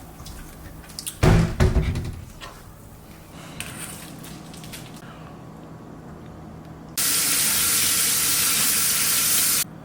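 A few dull thumps about a second in, then a kitchen faucet running as a steady hiss for nearly three seconds before it is shut off abruptly near the end.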